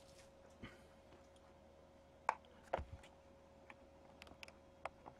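Faint clicks and taps of fingers working at a cardboard trading-card box on a desk, scattered and irregular, the sharpest two a little over two seconds in and one near the end, over a faint steady hum.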